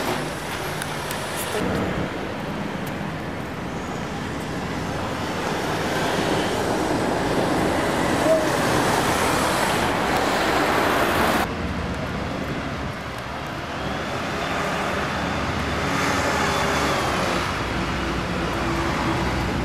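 Street traffic noise: the sound of passing vehicles swells, then cuts off abruptly a little past halfway. It builds again with another passing vehicle near the end.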